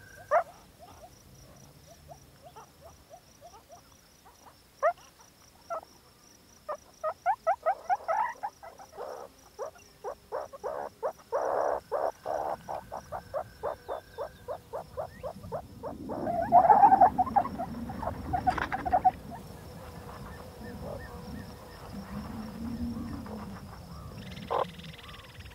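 Small animals calling in short chirps and clucks, a quick run of them about a third of the way in and a louder cluster about two-thirds through, over a steady high, pulsing insect trill.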